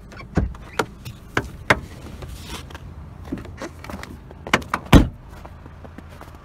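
A 2002 Fiat Punto's driver's door being unlatched and pushed open from inside, then a run of knocks and clicks as someone climbs out, and the door slammed shut about five seconds in, the loudest sound. A low steady hum of the idling engine runs underneath.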